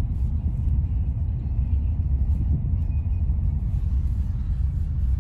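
Steady low rumble of a car on the move, its road and engine noise.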